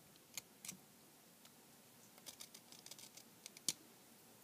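Faint small clicks and scrapes of a cheap soldering iron's metal barrel and element assembly being worked apart by hand, with a sharper click near the end.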